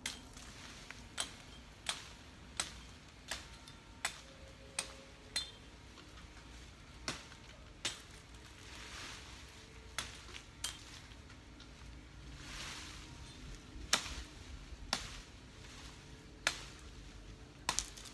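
A series of sharp, irregular clicks, roughly one a second, with a soft rustle of leaves swelling twice around the middle.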